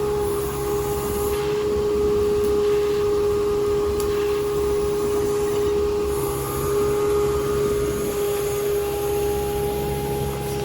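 Engine of a digging machine running steadily, with a constant hum over a low rumble.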